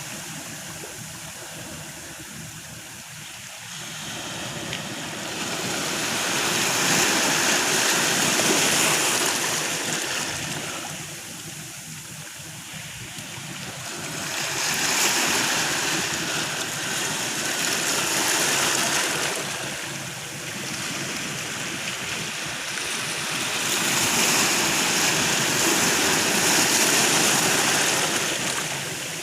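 Ocean waves breaking, a continuous rushing wash that swells and fades every several seconds as each wave comes in.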